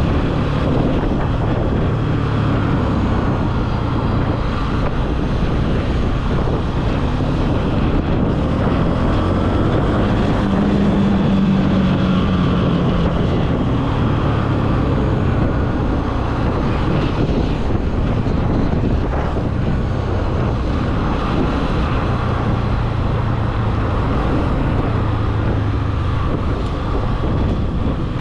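Honda CB300F single-cylinder engine running under way, with wind rushing over the microphone. The engine note climbs for a few seconds about ten seconds in, then settles again.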